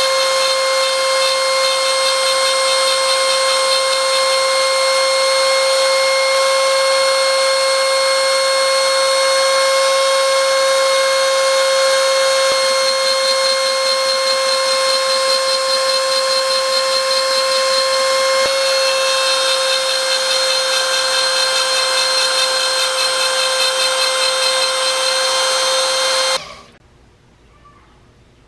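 Shapeoko desktop CNC router spindle running with a steady high whine while its end mill cuts a red plastic reflector. The sound stops suddenly near the end.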